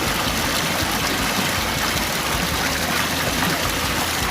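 Mountain stream water flowing steadily, a continuous rushing sound.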